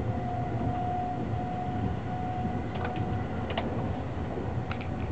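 Sunrise Seto/Izumo sleeper train, a 285 series electric multiple unit, running, heard from inside the carriage. There is a steady low rumble, a faint steady hum that fades about halfway through, and a few short clicks in the second half.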